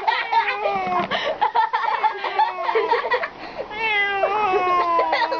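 Domestic cat meowing loudly and insistently, a string of long, drawn-out calls that each slide down in pitch.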